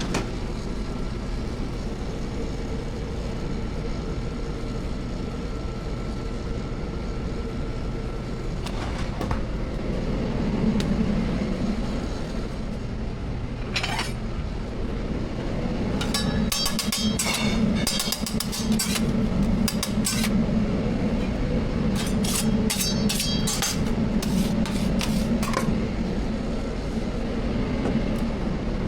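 Metal cooking utensils clattering in two quick runs of strikes, about halfway through and again a few seconds later, over a steady background din.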